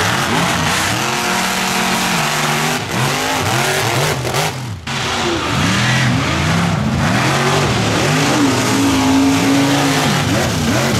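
Engine of an off-road racing vehicle revving hard, its pitch rising and falling over and over. The sound breaks briefly a little before halfway, and the revs are held high for about a second near the end.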